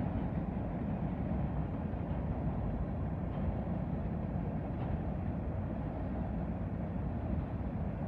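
Freight train cars rolling past, a steady low rolling noise of wheels on the rails.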